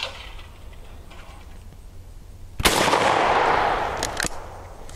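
A single shotgun shot about two and a half seconds in at a sporting clays target, with a long decaying echo, followed by two quick sharp clicks.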